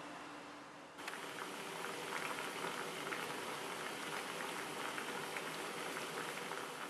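A small pot of herbal tea with lemon and apple slices boiling hard: a dense, crackling bubbling that starts abruptly about a second in.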